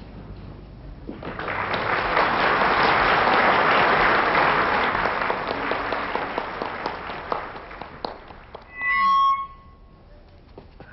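A long swell of rushing noise that builds and then fades away, followed about nine seconds in by one short, loud, steady horn-like toot, the dog's 'trumpet' party piece.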